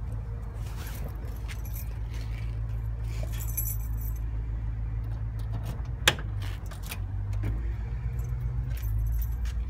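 Keys jangling at the trunk of a 1967 Ford Mustang as it is unlocked and opened, with one sharp click about six seconds in. A steady low hum runs underneath.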